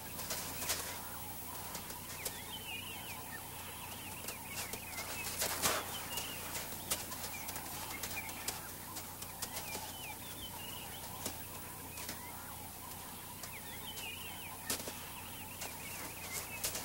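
Outdoor bush ambience: small birds chirping briefly every second or two, with scattered sharp clicks and rustles, the loudest cluster about five and a half seconds in.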